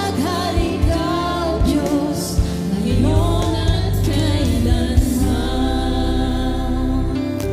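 Gospel worship song: voices singing with bending melodic lines over steady sustained instrumental backing and bass.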